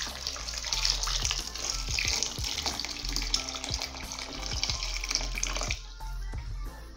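Water pouring from a jug into an aluminium pot of peeled plantains, a steady splashing stream that stops about six seconds in.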